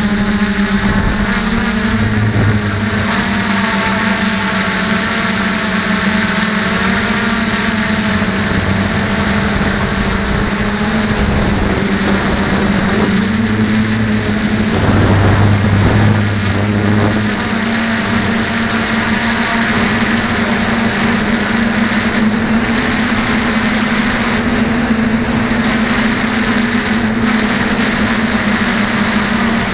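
DJI 450 quadcopter's electric motors and propellers buzzing steadily, heard close from a camera on its frame. The pitch shifts a little as the throttle changes, with a louder surge about halfway.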